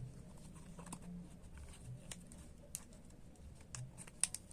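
Faint, scattered light clicks and taps of a small cardboard medicine box being opened by hand, coming thicker near the end.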